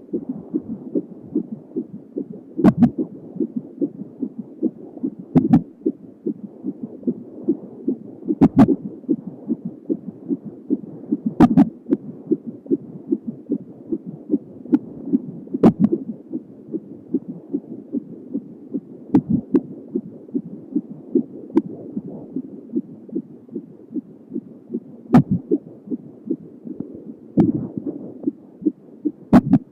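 A 31-week fetus's heartbeat heard through a handheld fetal Doppler: a fast, even whooshing pulse of about two beats a second. About every three seconds a sharp thump rings out in a steady rhythm, the baby's hiccups.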